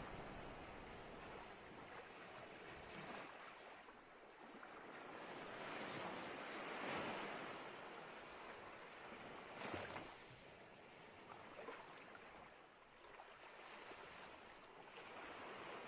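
Sea waves washing onto a shore, a soft hiss of surf that swells and recedes, loudest about halfway through, with a short sharper splash about ten seconds in.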